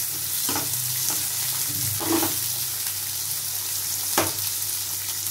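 Sliced onions and green chillies sizzling in hot oil in a metal pan, stirred with a metal spoon that scrapes against the pan several times, with a sharper knock about four seconds in.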